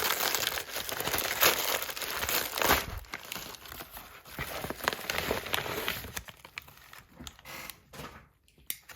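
Packaging being torn open and crumpled by hand: dense crinkling and tearing that thins out to a few scattered rustles and clicks after about six seconds.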